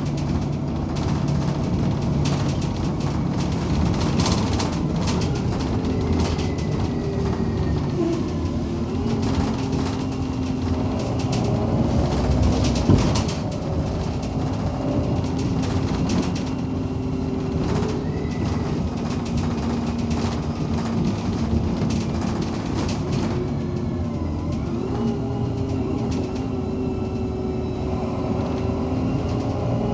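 Irisbus Citelis 18 articulated bus's Iveco Cursor 8 diesel engine running steadily with a low rumble, and a single sharp knock about 13 seconds in.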